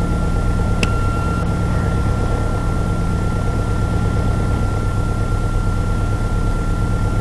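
Piper Archer's four-cylinder Lycoming engine running steadily, heard as a low hum through the cockpit audio feed, with a thin steady high whine over it and a brief click about a second in.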